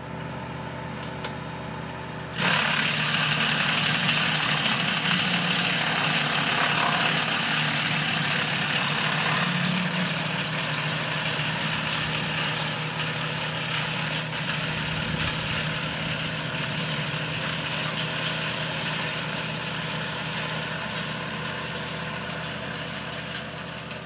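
Woodland Mills TF46 PRO PTO-driven wood chipper on a Kubota BX2380 tractor running empty with a steady hum, then, about two seconds in, suddenly taking a hand-fed branch: a loud, dense noise of the branch being cut up and the chips blown out of the discharge chute. The chipping noise eases off slowly towards the end as the branch is used up, the tractor and chipper hum going on underneath.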